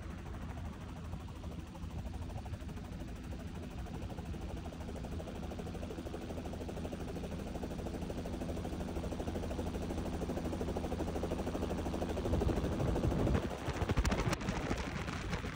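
Helicopter rotor and engine noise in the hover, with rotor downwash buffeting the microphone. It grows slowly louder and turns rougher for a couple of seconds near the end.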